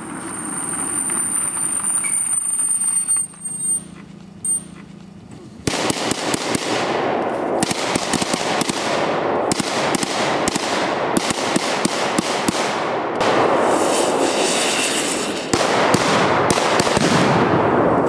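Rapid gunfire, many sharp shots in quick runs from about six seconds in, most likely blank rounds in a staged shootout. Before it, a car is heard running along the road.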